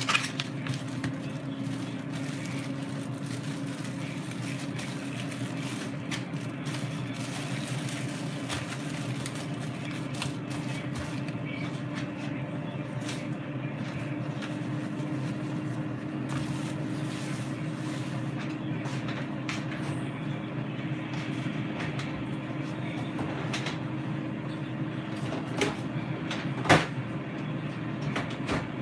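Air fryer running, its fan giving a steady whir and hum, with a few light knocks and a sharp click near the end.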